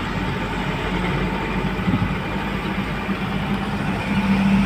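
A truck's engine running with a steady low drone, heard from inside the cab while the truck drives, mixed with road noise.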